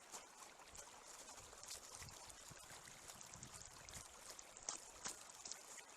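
Faint trickle of running water from a small forest stream, with a few soft clicks.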